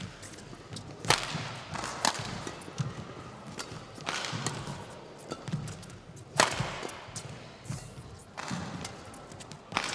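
Badminton rally: rackets strike the shuttlecock with sharp cracks every one to two seconds, the loudest about one, two, four, six and a half and eight and a half seconds in. Players' footwork thuds on the court between hits.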